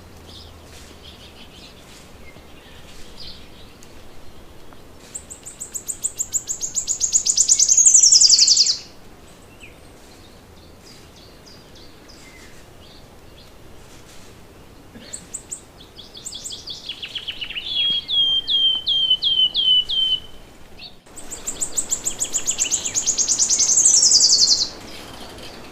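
Songbirds singing. A fast trill grows louder and slides down in pitch over about three seconds; it comes twice, about five seconds in and again near the end. Between them, another phrase of about eight quick repeated notes sounds at a lower pitch.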